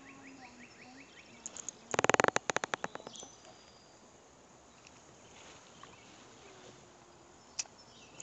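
A rapid rattle of about a dozen sharp clicks, some ten a second, starting about two seconds in and fading out over about a second. A single faint click follows near the end.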